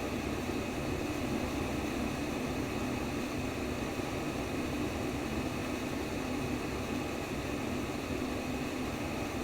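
Steady white noise for baby sleep: an even, unbroken hiss with most of its weight in the low range.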